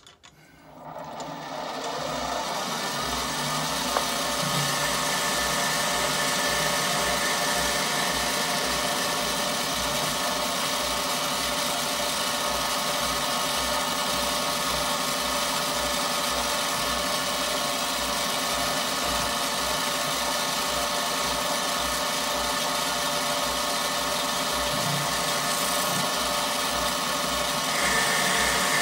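Benchtop mini metal lathe starting up and coming up to speed over the first couple of seconds, then running steadily with a hum and whine while the tool turns a rod of ebonite.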